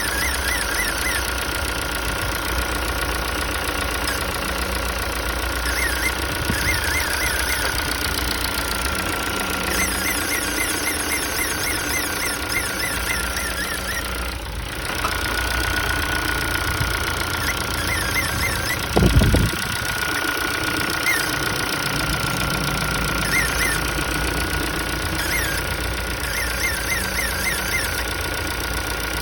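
Ford Focus 3 1.6 engine running at idle with a steady high-pitched whistle over it, a whistle whose cause the owner does not know. Short squeaky chirps come and go every few seconds, and about nineteen seconds in there is a brief low thump, the loudest moment.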